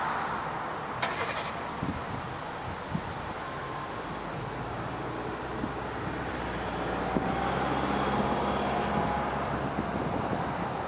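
Outdoor ambience: a steady rushing noise of distant traffic, with a constant high-pitched insect drone over it.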